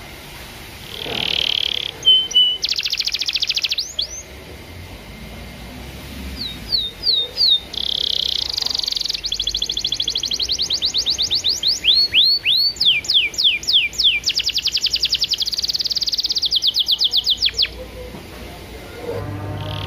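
Domestic canary singing: long phrases of fast trills of repeated notes, with a run of slower falling whistles about halfway through and short pauses between phrases.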